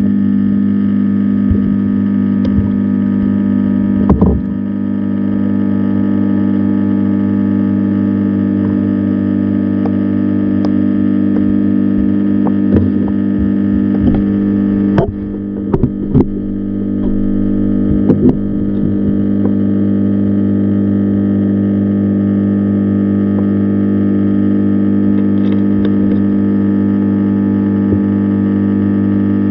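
A loud, steady hum of several held tones, broken by a few sharp knocks about four seconds in and a cluster of knocks between about fifteen and eighteen seconds.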